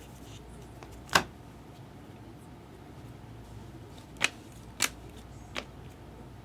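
Baseball trading cards being handled and sorted by hand: four short sharp snaps as cards are flicked and set down, the first about a second in and three more closer together later on, over a faint steady low hum.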